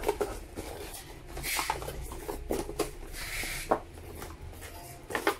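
Cardboard and plastic packaging being handled: a cardboard insert slides in the box and the plastic wrap rustles, with two longer swishes and a few light knocks.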